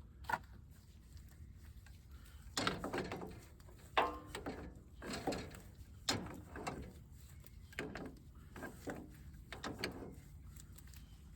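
An adjustable wrench working bolts loose on a metal cover: a series of short clicks, scrapes and squeaks, coming every half second to a second.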